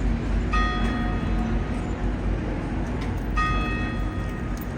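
A bell rings twice, about three seconds apart, each ring fading over about a second, over a steady low background rumble.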